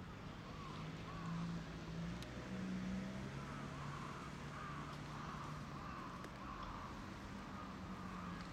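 A low engine hum that steps up and down in pitch a few times, with short chirps repeating throughout above it.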